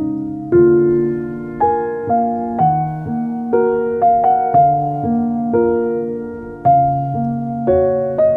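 Slow, gentle piano background music, with a new note or chord struck about every half second to a second and each one fading away.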